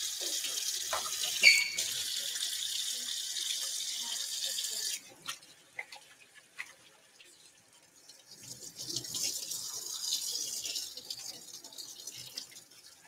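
Kitchen tap running into a stainless steel sink as hands are washed under it, with a brief squeak about a second and a half in. The water stops about five seconds in, leaving a few small clicks, then runs again more softly for a few seconds.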